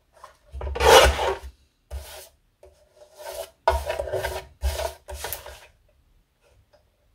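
Paper and card being handled and rubbed on the work surface: a series of about six short rasping rubs, the first the loudest.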